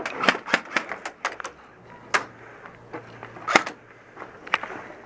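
Airsoft gunfire: a quick run of sharp snapping shots and BB hits in the first second, then single sharp snaps spaced about a second apart.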